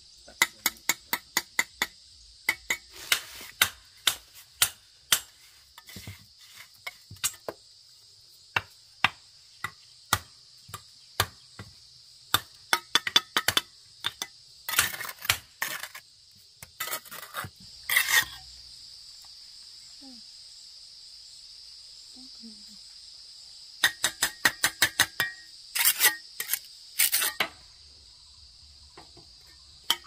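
Steel bricklaying trowel tapping and knocking hollow clay bricks to bed them into wet mortar, in quick runs of sharp clicks with pauses between. Crickets chirr steadily behind.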